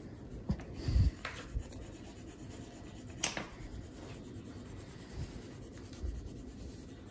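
Wax crayons scratching back and forth over paper as two people colour in, with a few light knocks, the loudest about a second in and again a little past three seconds.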